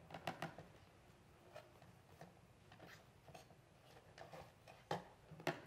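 Faint scraping and small clicks of a Phillips screwdriver driving a screw into the bracket of a sofa's plastic charging-station unit, with two sharper clicks near the end.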